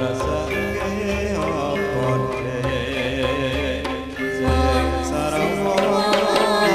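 Javanese gamelan ensemble playing: bronze metallophones strike a melody of ringing pitched tones over deep gong notes, with a voice singing along.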